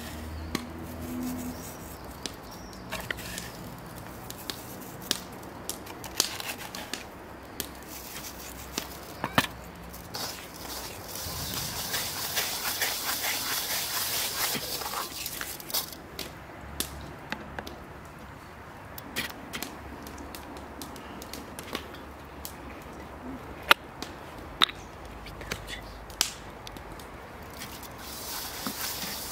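Food preparation sounds: scattered sharp knocks and taps, with a hiss for a few seconds around the middle.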